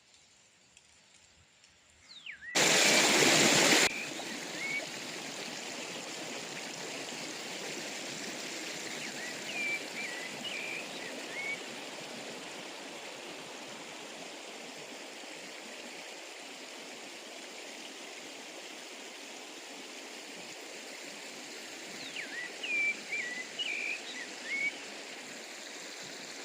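Stream rushing steadily over rocks, with short whistled bird calls in a few brief clusters. It opens in near silence, broken about two and a half seconds in by a loud rush of noise lasting over a second before the water sound settles in.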